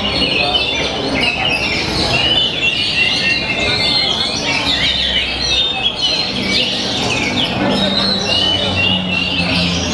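Oriental magpie-robin (kacer) singing its contest song: an unbroken, fast stream of loud chirps, whistles and short trills, the rapid burst phrases that kacer fanciers call 'tembakan'. A low steady hum joins about halfway.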